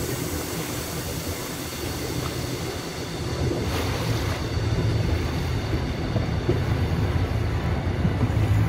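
A motorboat's engine running steadily at speed, with a rush of water along the hull. It grows a little louder after about three seconds.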